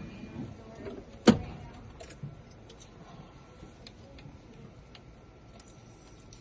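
A single sharp click about a second in, followed by a few faint light ticks and clicks, as of small hard objects being handled.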